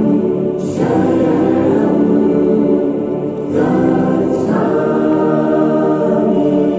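Choral music: voices in sustained harmony, with new phrases entering about half a second in and again about three and a half seconds in.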